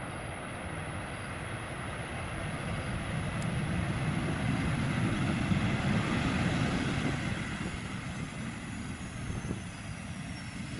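Boeing 737 airliner's jet engines passing along the runway: a rumbling, hissing roar that swells to its loudest about halfway through, then fades as the plane moves away, with a faint high whine falling in pitch near the end.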